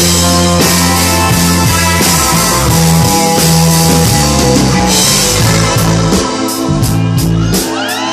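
Live rock band playing electric guitars over bass and drums, with steady cymbal and drum hits; near the end a note glides upward.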